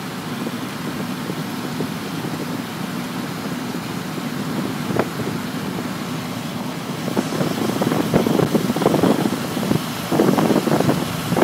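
Car running, heard from inside the cabin: a steady engine and road hum. Irregular short knocks and rushes grow louder from about seven seconds in.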